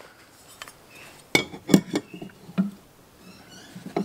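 A handful of sharp metallic clinks and knocks as a steel square and a marker are handled and set down on steel square tubing, most of them clustered in the middle with one more near the end.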